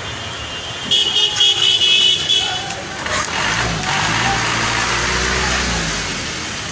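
A vehicle horn sounds in quick pulsing toots for about two seconds, then a vehicle engine runs with a low steady hum, over a continuous rushing background noise.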